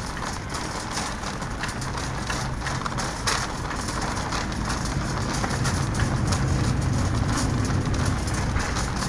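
Wire shopping cart rolling over a hard store floor: a steady wheel rumble with small rattles and clicks, getting a little louder about halfway through.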